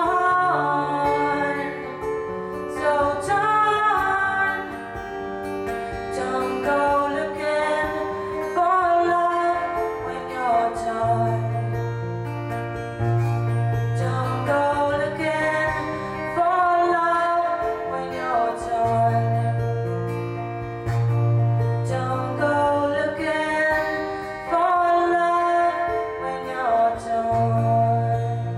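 A woman singing while strumming an acoustic guitar, her voice holding long notes over the chords and low bass strings.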